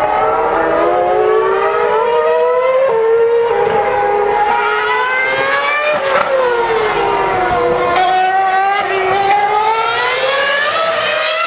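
Ferrari Formula One car's engine at high revs, a high-pitched scream. The pitch climbs, steps down about three seconds in, dips around six seconds in, then climbs again steeply as the car accelerates.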